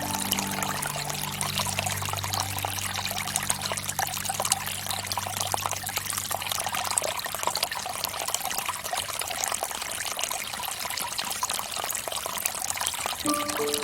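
Water from a bamboo fountain pouring and trickling into its basin as a steady patter of small splashes. A low held music chord fades out over the first few seconds, and music comes back in near the end.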